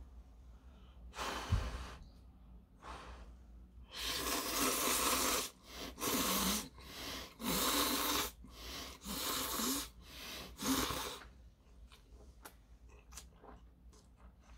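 Carbonara buldak instant stir-fried noodles being slurped from a small cup, in a run of about five loud, airy slurps. Soft clicking chewing follows near the end.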